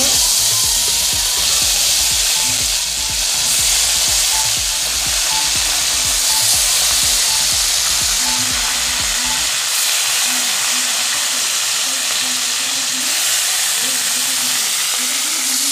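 Whole parshe fish (small mullet) sizzling steadily as they shallow-fry in hot oil in a metal wok, starting as the fish are slid into the oil.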